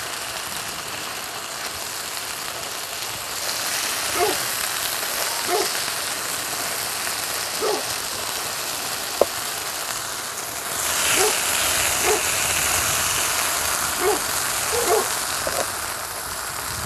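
Chicken sizzling on a hot electric griddle as it is sliced with a knife and moved with wooden tongs. The sizzle grows louder about three and a half seconds in and again near eleven seconds, with scattered light taps of the utensils against the griddle and one sharper click.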